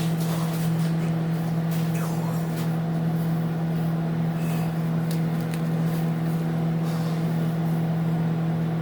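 Microwave oven running with a steady hum, with a few faint clicks scattered through it.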